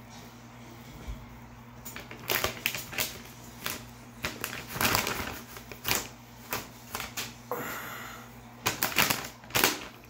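Irregular sharp clicks and taps of objects being handled on a countertop, in quick uneven clusters, over a steady low hum.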